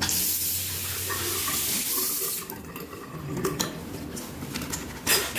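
Water running from a tap into a sink for about two and a half seconds, then shut off. Light knocks and clatter follow, with a brief louder rush of noise near the end.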